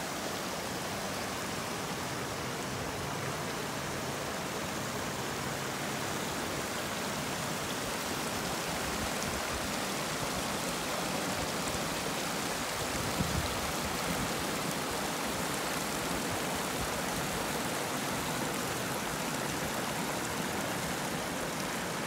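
Creek water flowing over rocks in shallow, foamy riffles: a steady, even rush. A brief low bump comes a little past the middle.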